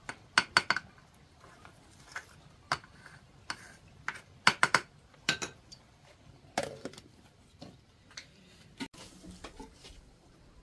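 A utensil knocking and scraping against the side of a metal pot while stirring and fluffing cooked rice: irregular sharp clinks, some in quick runs of two or three.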